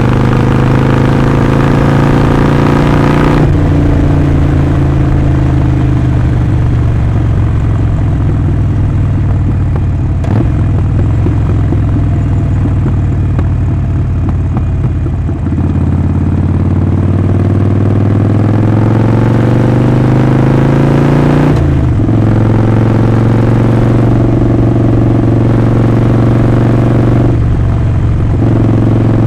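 Harley-Davidson Sportster Forty-Eight's 1200 cc air-cooled V-twin running under way. Its note climbs steadily through the second half, and it breaks off abruptly about three-quarters of the way in and again near the end as gears change.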